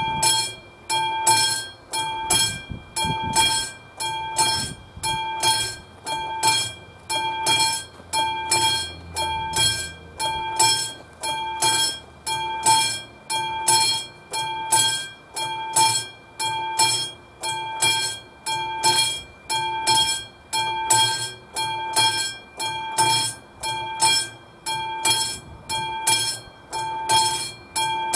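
Level-crossing warning bell of the classic mechanical type ringing in a steady, even rhythm, each strike leaving a clear ringing tone: the crossing is activated, warning of an approaching train.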